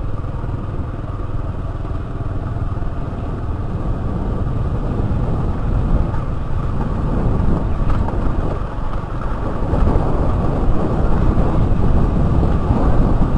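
Motor scooter running at riding speed, its small engine humming under tyre and wind noise; it grows gradually louder over the stretch.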